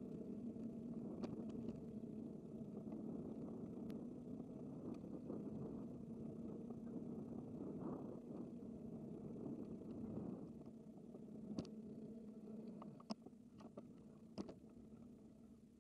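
Steady rolling noise of a bicycle ride, wind and road sound with a low hum, dying down after about ten seconds. A few sharp clicks follow near the end.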